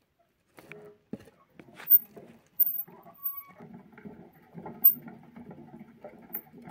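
Hamster running in a metal wire-mesh exercise wheel. Scattered clicks and knocks come first, then from about halfway the wheel rattles continuously as it spins.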